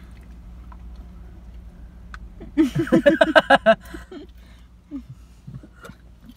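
A burst of laughter about two and a half seconds in, lasting about a second. Small clicks and eating sounds from plastic spoons in food tubs fill the quieter moments around it.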